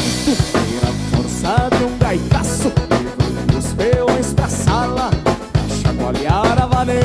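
Instrumental gaúcho dance-band music: a lead melody over a steady drum-kit beat.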